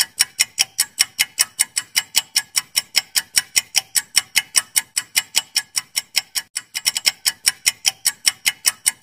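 Ticking sound effect of a quiz countdown timer, even and fast at about five ticks a second.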